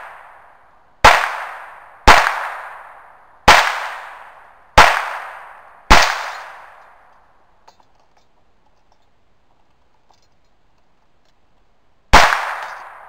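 Six gunshots: five fired roughly a second apart, then a pause of about six seconds and one more near the end. Each shot echoes away over about a second.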